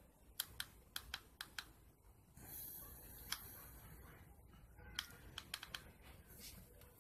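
Faint, sharp clicks of buttons being pressed on a small handheld electronic device: six quick clicks in the first two seconds, a short burst of hiss with one click in the middle, then five more clicks about five seconds in.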